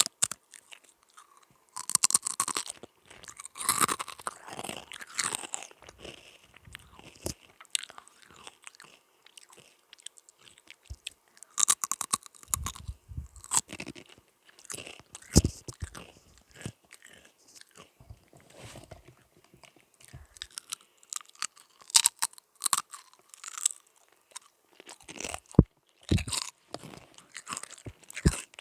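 Close-miked mouth sounds of someone crunching and chewing Sunbites crisps: irregular crackly crunches and bites, with short pauses between mouthfuls.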